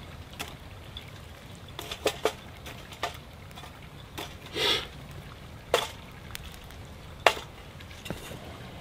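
Small wood fire crackling in a UCO Flatpack Grill, with irregular sharp pops, and a brief rasp about halfway through as a stick is pushed into the burning wood.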